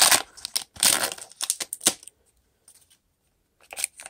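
Foil trading-card pack being torn open and crinkled by hand, a dense crackle for about two seconds, then two brief rustles of handled cards near the end.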